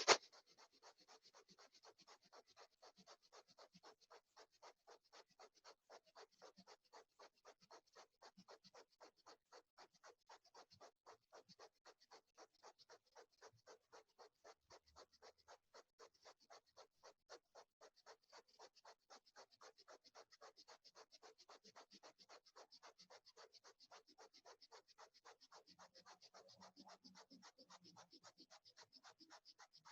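Bhastrika (bellows breath): rapid, forceful sniff-like inhales and exhales through the nose, faint and airy, in a fast, even rhythm.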